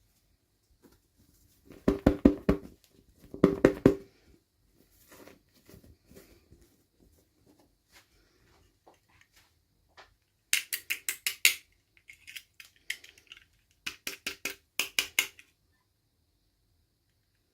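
Toy packaging being handled and opened by hand: four short runs of rapid clicking, about two to three seconds apart at first and then after a pause, with faint rustling in between.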